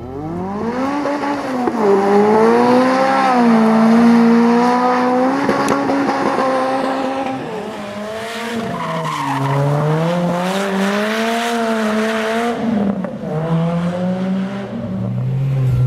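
Lotus Exige four-cylinder engine revved hard, its pitch climbing and falling again and again, with tyres squealing as the car slides sideways on a wet road.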